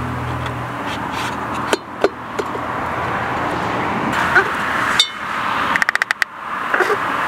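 Metal clinks and taps from a Ford 3000 tractor's steel oil filter canister as a new filter element and its metal end plate are worked into it, with a quick rattle of small clicks about six seconds in.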